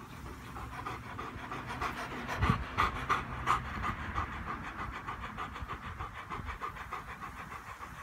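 Bernese Mountain Dog panting rapidly with its tongue out, about four to five breaths a second, louder around the middle, cooling itself in the heat.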